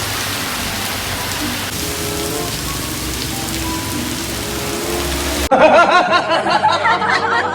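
Steady, loud rushing hiss like heavy rain, with a few faint held music notes beneath it. About five and a half seconds in it cuts off abruptly, and high-pitched voices with music take over.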